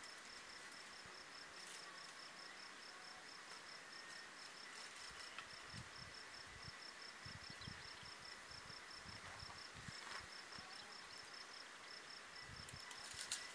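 A cricket chirping in a fast, even run of short high pulses, faint. A few faint dull knocks in the middle come from wooden roof battens being handled.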